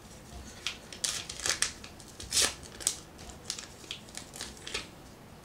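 Trading-card pack wrapper crinkling and tearing as it is peeled open by hand and the card stack slid out: a run of irregular crackles.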